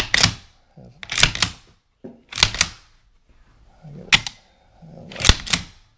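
Shotgun shells pushed one after another into the tube magazine of a Franchi Affinity 3 20-gauge shotgun, each one clacking metallically past the newly fitted spring-loaded two-piece carrier latch. About five sharp clacks, several in quick pairs, roughly a second apart.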